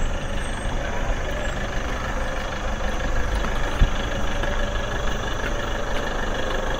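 Vehicle engine running steadily with a low rumble, with one short thump a little before four seconds in.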